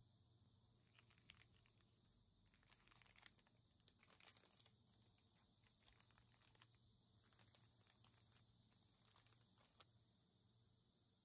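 Clear plastic packaging bags crinkling faintly as they are handled, in scattered soft crackles that come thickest about two to four seconds in.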